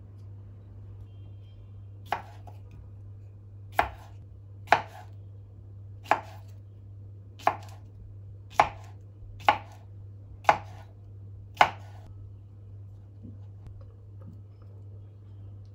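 A knife chopping on a cutting board: nine separate sharp cuts at an uneven, unhurried pace, over a low steady hum.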